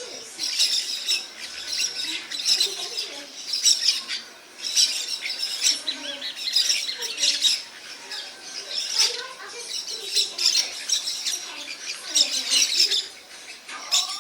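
A flock of maritacas (small Brazilian parakeets) calling, many overlapping calls in a near-constant chatter with a brief lull about four and a half seconds in.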